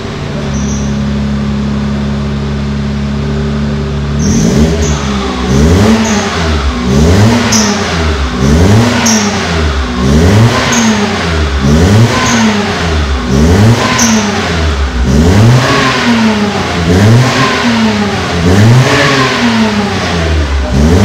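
Perodua Axia 1.0-litre three-cylinder engine breathing through a new full stainless-steel exhaust system with custom downpipe. It idles steadily, then about four seconds in it is revved in repeated quick blips, the note rising and falling about once a second.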